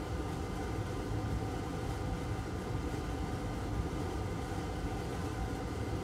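Steady low hum with a faint hiss, even throughout and with no distinct clicks or knocks.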